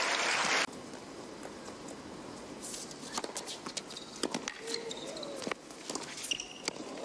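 Crowd noise cuts off abruptly about half a second in. Then comes quieter tennis court sound: a tennis ball bouncing and being struck by rackets in a run of sharp knocks, with short squeaks of shoes on the hard court.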